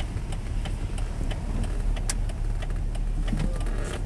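Car driving slowly, heard from inside the cab: a steady low engine and road rumble, with scattered small rattles and one sharp click about two seconds in.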